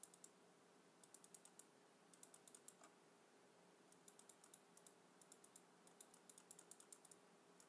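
Faint computer keyboard typing: several short runs of light keystroke clicks, with pauses between them.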